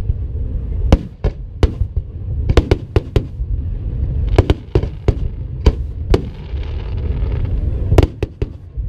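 Aerial fireworks display going off: a rapid, irregular string of sharp bangs over a continuous low rumble, with a spell of crackling hiss about halfway through.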